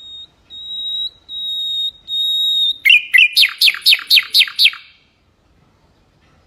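Mangrove whistler singing: four long whistled notes held steady on one high pitch, then a quick run of about eight falling notes.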